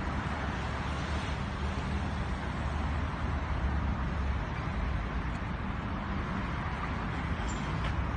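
Steady outdoor city background noise with a low rumble of road traffic.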